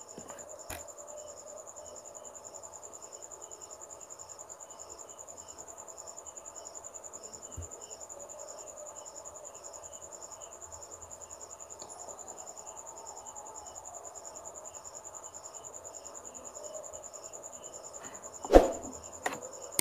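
Crickets chirping steadily, a high, evenly pulsing trill, over a faint background hum. A single sharp knock sounds near the end.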